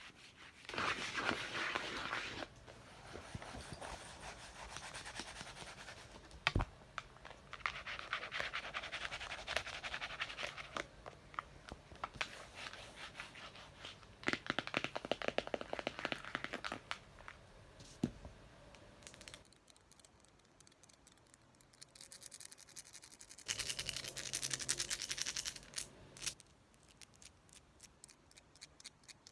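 Scratching on a book in fast bursts of a few seconds each, with a single sharp tap now and then between them and light, quick tapping near the end.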